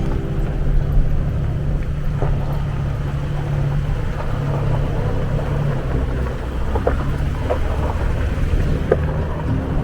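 An off-road vehicle driving on a dirt trail, its engine and tyres making a steady low rumble, with a few light knocks and rattles.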